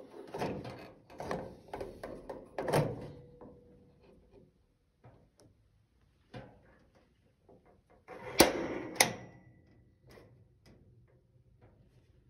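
Plastic clicks and rubbing as a gas wall heater's control knob is turned and pushed in. Then two sharp clicks come about half a second apart, the piezo igniter button being pressed to spark the pilot.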